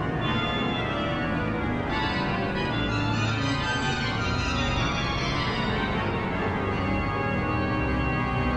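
Large pipe organ improvising: dense held chords over a heavy bass, with a bright high register swelling in about two seconds in and thinning out again after about six seconds.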